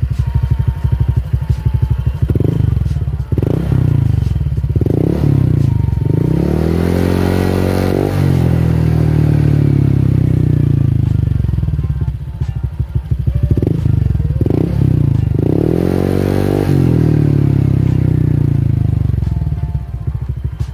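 Honda Vario 125 scooter's single-cylinder four-stroke engine revved while standing still, through an SKR standard-racing exhaust. There are a few short throttle blips, then twice a longer rev into the mid range that rises, holds briefly and falls back to idle.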